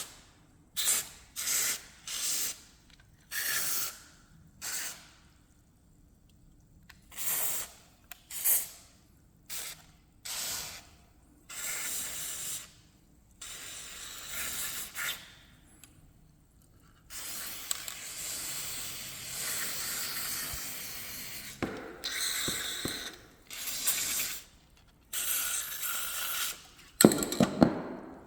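Aerosol spray grease hissing from the can in many short squirts, with one longer spray of about four seconds midway, applied to an office chair's tilt mechanism to stop it squeaking when the backrest is leaned on. A louder handling noise comes near the end.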